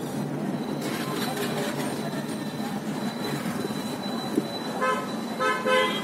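Busy road traffic heard from inside a car's cabin, with a vehicle horn tooting twice near the end: a short toot, then a slightly longer one.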